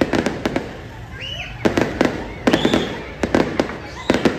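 Aerial fireworks exploding: several quick volleys of sharp bangs and crackles, with a short lull about a second in.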